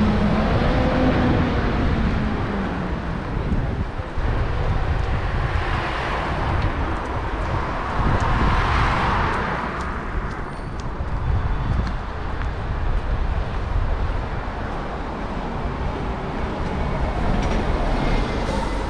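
Road traffic beside a busy town street: a passing car's engine note fades in the first second, then another vehicle swells up and dies away about nine seconds in, over a steady low rumble of traffic.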